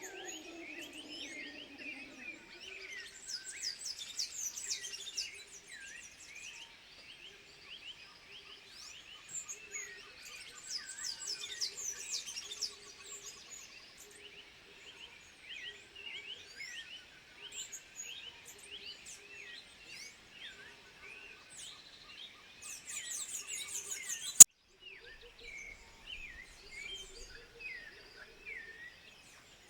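A chorus of high-pitched chirping and twittering animal calls, many overlapping, with louder bursts of rapid trills every several seconds. A single sharp click sounds about 24 seconds in.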